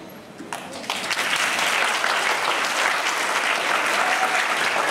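An audience of schoolchildren applauding, swelling from a lull into steady clapping about a second in.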